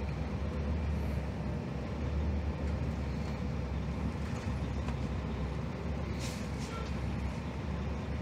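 Cummins ISM inline-six diesel of a 2001 Gillig Phantom transit bus running under way, heard from inside the cabin as a steady low drone with road noise. A short hiss of air comes about six seconds in.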